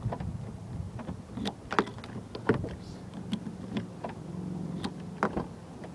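Exterior door handle of a 2003 Toyota Corolla pulled and let go several times, giving a series of irregular clicks and clacks over a steady low hum.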